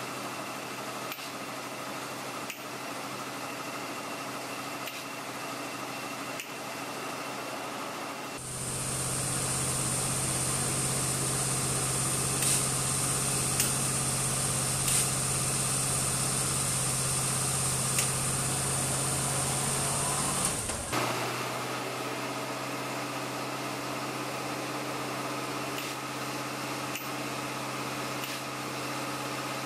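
Engine running steadily on a transmission dyno, driving a Powerglide with a transbrake. A louder stretch in the middle adds a strong high hiss and a few sharp ticks.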